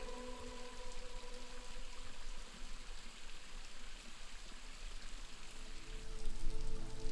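Steady splashing and trickling of a stream's running water. Soft sustained music chords come in near the end.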